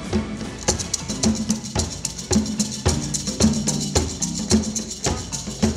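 Drum-led music: drums strike a steady beat about twice a second over a low held bass tone, and a faster high ticking layer comes in just under a second in.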